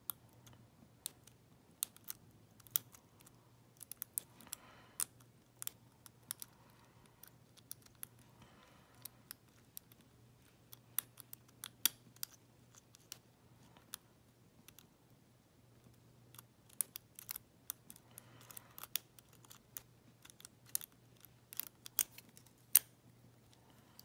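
Lock pick working the pin stack of an EVVA euro cylinder under tension: scattered small metallic clicks and ticks in irregular bunches, the loudest near the end.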